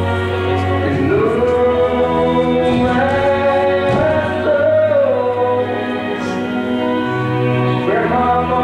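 Music with singing: a voice holds and slides between long notes over a steady low accompaniment.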